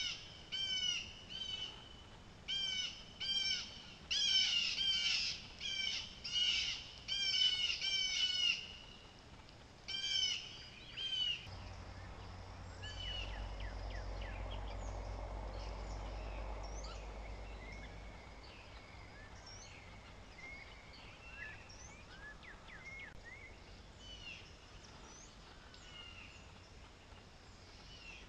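Crows cawing, a rapid series of harsh caws for about the first ten seconds, then falling quiet. A low rumble rises and fades for several seconds after that, and faint chirps of small birds follow.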